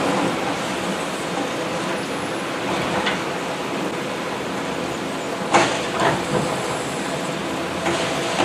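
Mack automated side-loader garbage truck running at the curb as its hydraulic arm lifts a polycart and tips it over the hopper, with sharp clanks about five and a half and six seconds in.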